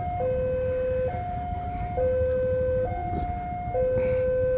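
Railway level-crossing alarm sounding a steady electronic two-tone, alternating low and high with each tone lasting just under a second, warning that a train is approaching the crossing.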